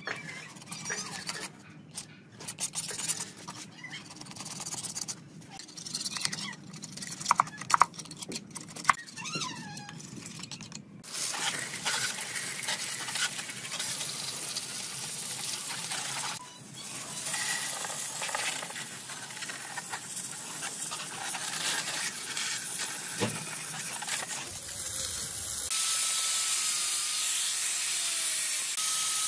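A metal putty knife scrapes and clicks against a corroded lathe gearbox casting. At about 11 s a pressure washer jet starts spraying the castings with a steady, louder hiss. Near the end an angle grinder's whine takes over.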